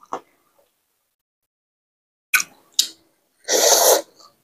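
A few sharp mouth clicks, then near the end a loud slurp lasting about half a second as rice noodles are sucked into the mouth.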